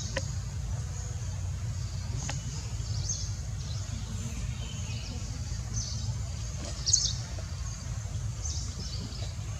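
Outdoor ambience: a steady low rumble with scattered short, high bird chirps, one louder chirp about seven seconds in.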